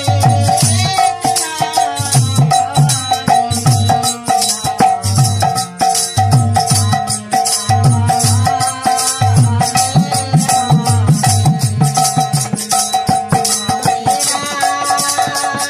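Devotional kirtan music: a harmonium holds steady reed notes while a khol barrel drum beats a rhythmic pattern of deep strokes and small hand cymbals are struck in a fast, even beat.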